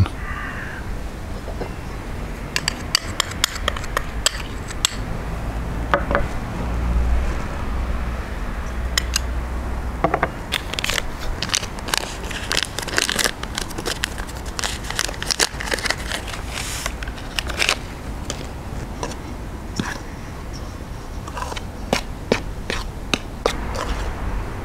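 Metal spoon tapping, clinking and scraping against a stainless steel mixing bowl while dry flour, salt, sugar and yeast are added and stirred together, giving many irregular sharp clicks.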